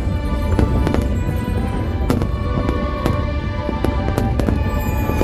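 Aerial firework shells bursting in irregular bangs, several a second, over a steady low rumble, mixed with loud music.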